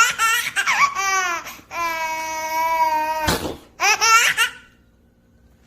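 Baby laughing in high-pitched squealing bursts, with one long held squeal about two seconds in and two short shrieks near four seconds, stopping about four and a half seconds in.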